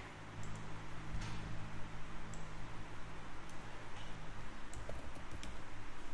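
Scattered computer mouse clicks over a steady low electrical hum.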